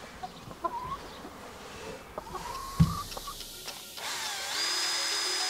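A hen gives a few short, soft rising calls, with a single thump near the middle. About four seconds in, a Makita 18V cordless drill spins up and runs steadily with a high whine.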